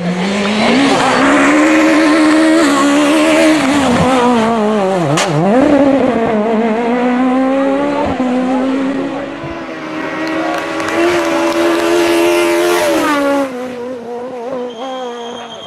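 Peugeot 306 Maxi rally car's high-revving 2.0-litre four-cylinder engine at full race pace, its revs climbing and dropping repeatedly through gear changes and corners. About five seconds in the revs fall away sharply and a single sharp crack is heard. Near the end the engine sound fades as the car pulls away.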